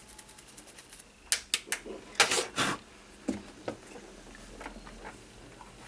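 A cluster of sharp plastic clicks and scrapes about a second in, then a few lighter clicks: a charger plug being pushed into a Realme C35's freshly cleaned charging port and the phone being handled.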